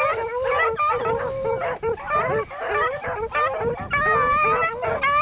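A pack of beagles baying on a rabbit's track, many hound voices barking and howling over one another without a break.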